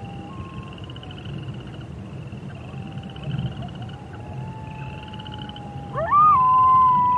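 Wolves howling: faint, long held howls, then about six seconds in a loud howl that swoops up and holds one steady note, over a background chorus of rapidly repeating trills.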